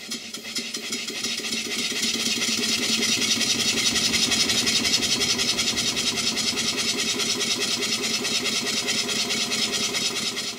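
Large old model horizontal steam engine running on low-pressure compressed air instead of steam: a rapid, even beat of exhaust puffs from its slide-valve cylinder. It grows louder over the first two seconds, then holds steady, and cuts off near the end.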